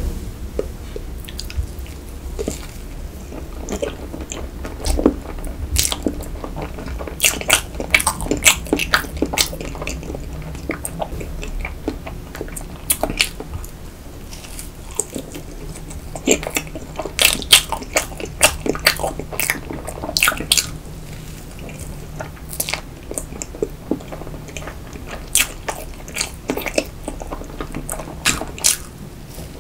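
Close-miked eating of a cream-filled sponge roll cake: bites and chewing with many short mouth clicks, coming in clusters with quieter spells between.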